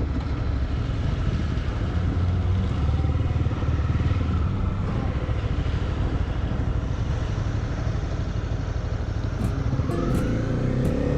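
Honda CB300R's single-cylinder engine running while riding, with wind rushing over the microphone. Near the end the engine note climbs as the bike accelerates.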